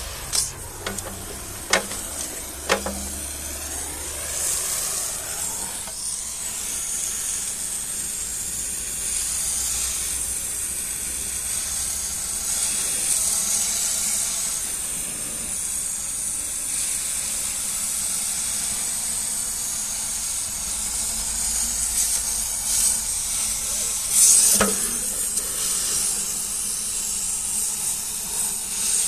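Oxy-propane cutting torch hissing steadily as it cuts scrap steel, with a few sharp knocks in the first few seconds and a louder one near the end.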